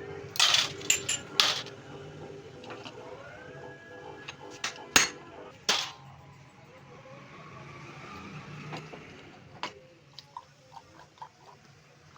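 Sharp metallic clinks and knocks of tools and parts being handled during work on a diesel injection pump, with several loud ones in the first two seconds and around five seconds in, then lighter ticks near the end, over a steady background hum.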